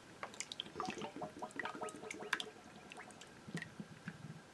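Coconut milk pouring from an opened tin can into a slow cooker crock: a faint, irregular run of small liquid splashes and drips.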